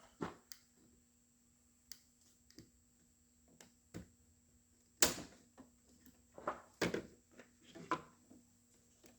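Scattered clicks and knocks from hands working on a car dashboard's wiring harness connectors, the loudest knock about five seconds in and a run of smaller clicks after it.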